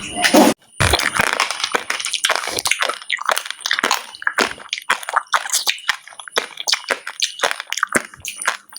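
Close-up chewing of a seeded banana: rapid, irregular crunching and crackling as the hard seeds break between the teeth, with a brief pause about half a second in.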